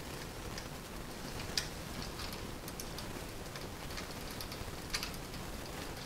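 A few faint, short clicks and taps as the plastic smart light switch and stiff copper wires are handled at the electrical box, over a low steady hiss.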